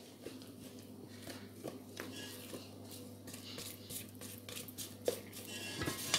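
Silicone spatula stirring thick chocolate cake batter in a stainless steel bowl, mixing in the cocoa: faint scrapes and small taps against the metal. A low steady hum runs underneath.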